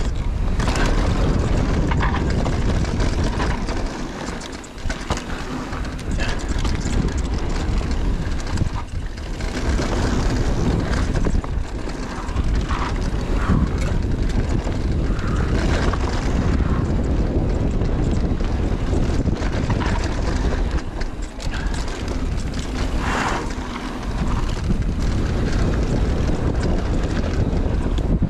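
Wind rushing over the microphone, with tyre and trail noise from a mountain bike riding downhill.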